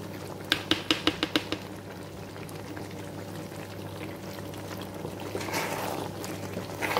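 A quick run of about seven light taps as shredded mozzarella is shaken off a plate onto pasta in a pan. From about five seconds in, a spatula stirs the penne in its creamy tomato sauce. A steady low hum runs underneath.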